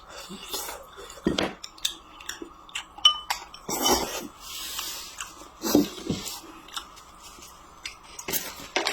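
Eating at a table: utensils clicking and clinking against dishes, with a few short bursts of chewing or slurping between.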